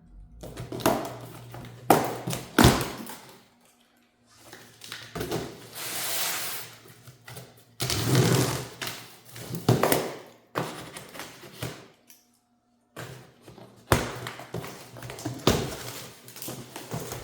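Cardboard box being opened and its contents handled: a series of knocks and thuds with stretches of rustling and scraping of cardboard and packing material, starting and stopping abruptly.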